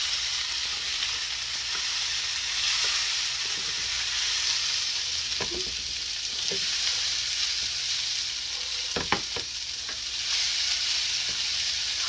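Shrimp fried rice sizzling steadily in a hot pan as it is stirred, with a few short knocks of the stirring utensil against the pan.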